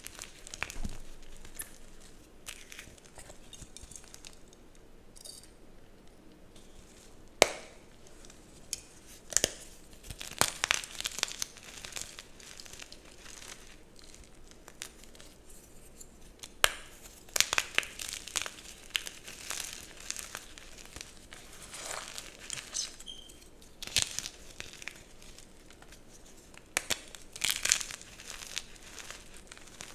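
Dyed gym chalk blocks being crushed and crumbled: irregular crisp crunches and crumbling, some sharp and loud, with short quieter gaps between them.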